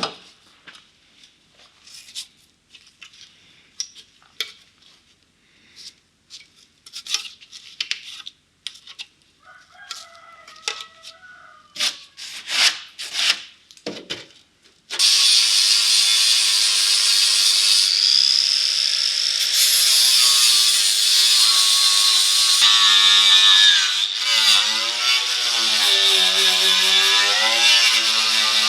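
Light clicks and scrapes of sheet metal being handled. About halfway in, a handheld power tool starts cutting or grinding sheet metal and runs loud and continuous, its pitch wavering as the load changes.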